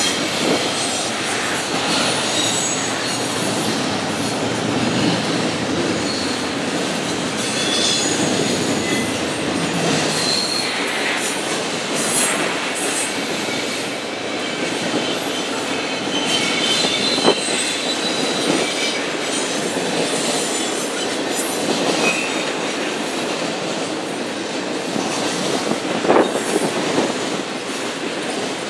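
BNSF double-stack intermodal freight train rolling past: steady rumble and clatter of wheels on rail, with short high wheel squeals now and then and two sharp clanks, one past the middle and one near the end.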